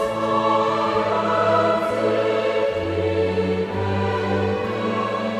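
Choral music: a choir singing long, held chords over a bass note that moves to a new pitch a little past halfway.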